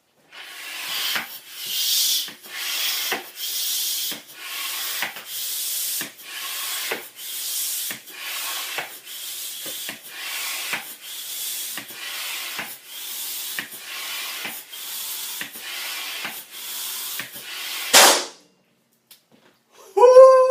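A rubber balloon rubbed back and forth in steady strokes, about one a second, until it pops loudly about 18 seconds in. A short howl follows near the end.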